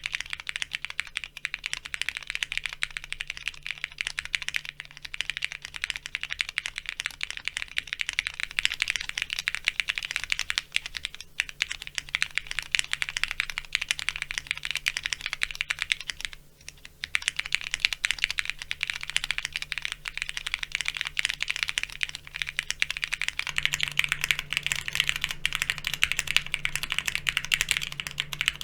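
Fast, continuous typing on a Neo70 plateless, foamless, gasket-mounted mechanical keyboard with linear Cherry MX Red switches and Cherry-profile keycaps, the key presses clacking in a dense stream. The typing breaks off briefly about two thirds of the way through.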